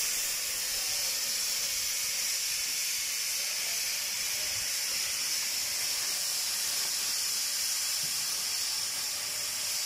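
Oxy-acetylene cutting torch hissing steadily as its flame and oxygen jet cut through a steel pipe.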